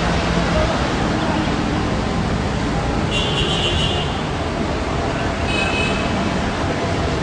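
Steady street din of a large mass bicycle ride moving along a city road, mixed with motor traffic. A high ringing sounds for about a second three seconds in, and again briefly near the end.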